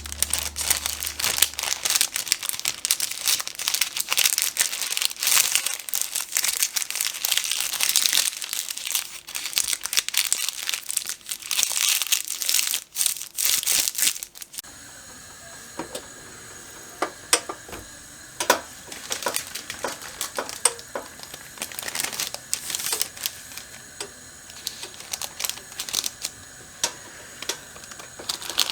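Packaging being crinkled and handled, a dense crackling rustle for about the first half. Then, after an abrupt change, only scattered light taps and clicks over a quieter background.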